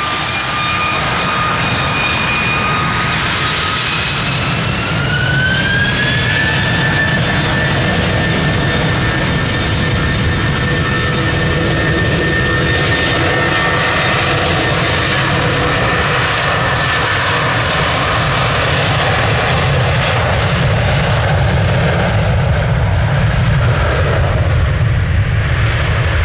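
Airbus A320's twin IAE V2500 turbofans spooling up to takeoff thrust: a whine rises in pitch about five seconds in, then holds steady over a loud low rumble as the jet accelerates down the wet runway.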